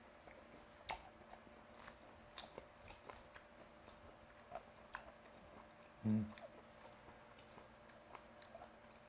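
Close-miked chewing of a mouthful of raw snakehead sashimi: soft, wet smacks and small clicks of the mouth, with one short, louder low sound about six seconds in.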